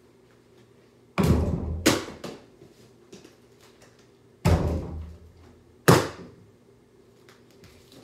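A small ball striking an over-the-door mini basketball hoop twice, about three seconds apart. Each time there is a heavy thunk with a brief rattle of the backboard against the door, then a sharper knock as the ball drops onto the hardwood floor.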